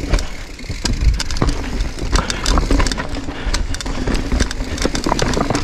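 Giant Reign downhill mountain bike rattling over a rough, rocky trail: many sharp knocks from the tyres striking rocks and the frame and chain shaking, over a steady low rumble.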